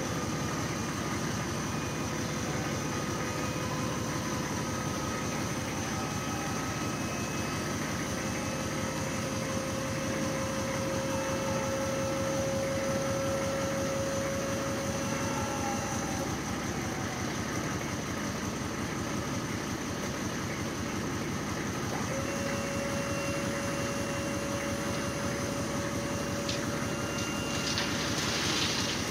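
Dump truck's hydraulic hoist pump whining with a steady tone as it raises the dump bed, over the truck's idling engine. The whine cuts off about halfway through and starts again a few seconds later as the bed keeps rising, and a short rushing hiss comes near the end.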